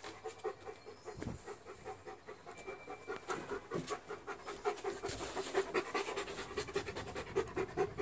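A dog panting rapidly and rhythmically, about four breaths a second, growing louder about halfway through.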